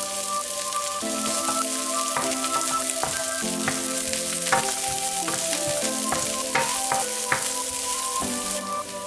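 Diced yellow onion sizzling in hot olive oil in a nonstick skillet, stirred with a wooden spoon that gives occasional light scrapes and taps. The sizzle drops noticeably near the end, under soft background music.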